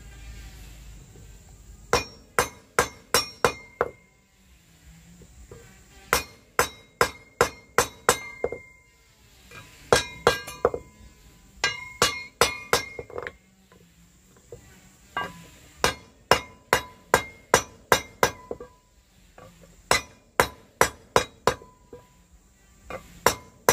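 A wooden mallet strikes the blades of a three-blade metal boat propeller held against a wooden block, in runs of about three blows a second with short pauses between. Each blow rings with a metallic clink. The blades are being hammered by hand to set the propeller's shape.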